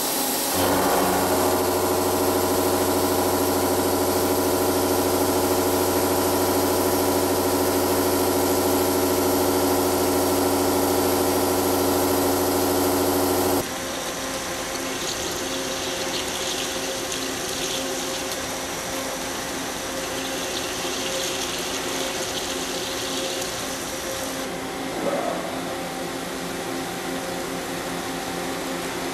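Milling machine face-milling a steel plate with an 80 mm face mill at 800 rpm: a loud, steady whine made of many tones. About fourteen seconds in it cuts off abruptly to a quieter 18 mm drill cutting under flood coolant, with coolant splashing, and the sound changes again near the end as an M20 tap is run in slowly.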